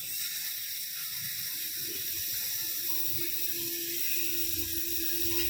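Air hissing out of a motorcycle tyre as it is deflated, a steady hiss that starts suddenly.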